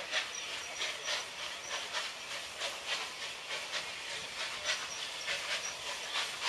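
Steam locomotive hissing steam in quick, even pulses, several a second.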